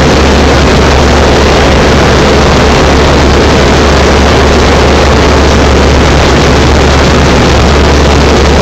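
Light aircraft's engine and propeller droning steadily in cruise, heard from inside the cockpit: a loud low hum under a steady rush of noise.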